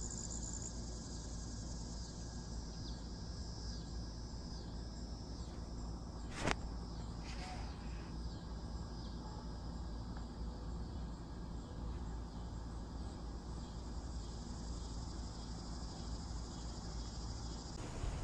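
Insects chirring steadily at a high pitch, with a single sharp click about six and a half seconds in.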